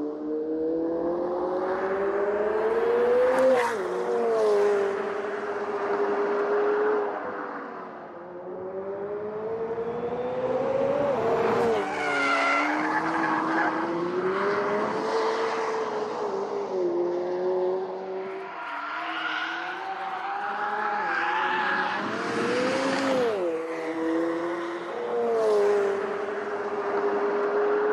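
McLaren 765LT's twin-turbo V8 under hard throttle, its pitch climbing and dropping off several times, while the tyres squeal as the car drifts through corners.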